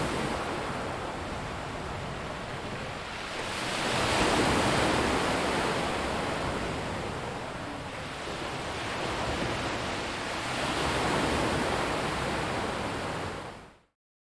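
Sea waves breaking and washing over a rocky beach, swelling and ebbing about three times. The sound fades out to silence just before the end.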